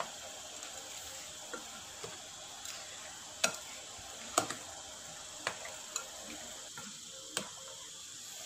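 Metal spoon stirring runny cake batter in a glass bowl, clinking against the glass at irregular moments: about a dozen sharp clicks, two of them louder, a third and halfway through.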